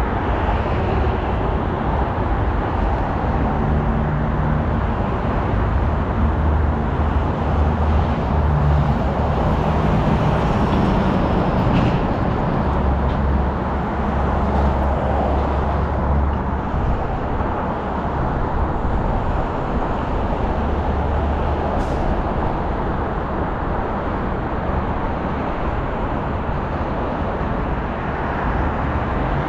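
Car driving through city traffic: steady road and tyre noise with a low engine hum that rises and fades.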